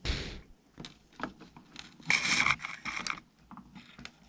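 Handling noise from close-up hand work: a thump at the start, scattered light clicks, and a short scraping rustle about two seconds in.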